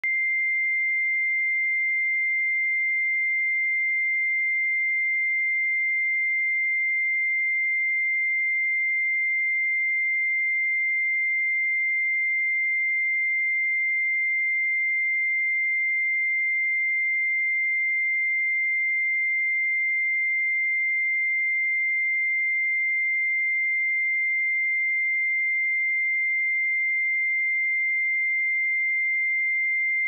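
Pure 2096 Hz sine-wave test tone, one steady high-pitched note held at an even level with no other sound.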